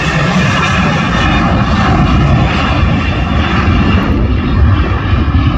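Boeing 737 airliner's twin jet engines running loud and steady as it rolls along the runway: a high fan whine over a deep rumble.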